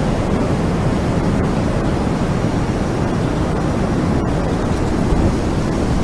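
Steady low rumbling noise with no distinct tone, even in level throughout.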